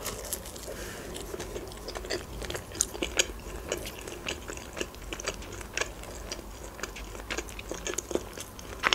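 A person biting into and chewing a shawarma wrap close to the microphone, with frequent small moist mouth clicks.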